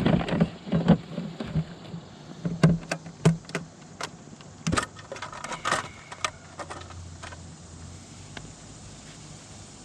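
Scattered knocks and clicks of gear being handled in a kayak, mostly in the first six seconds, then only a quieter steady background.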